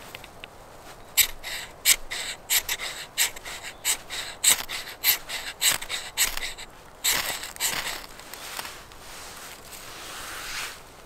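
A ferrocerium fire steel being scraped hard with a steel edge, a quick series of sharp rasping strokes at about three a second, starting about a second in and stopping after about seven seconds. The strokes throw sparks onto birch-bark shavings, which catch fire.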